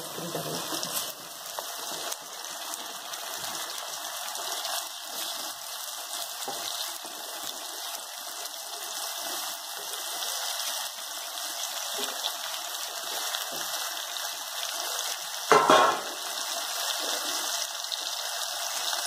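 Small whole fish frying in hot oil with onions in a steel kadai: a steady sizzle. A single brief clatter of utensil on pan comes about three-quarters of the way through.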